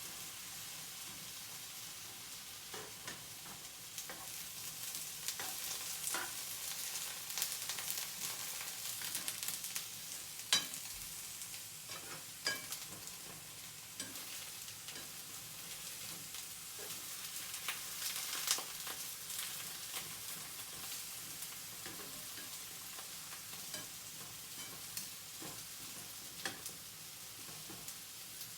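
Eggplant frying in oil in a pan: a steady sizzle, with scattered sharp clicks and scrapes of a utensil stirring it against the pan.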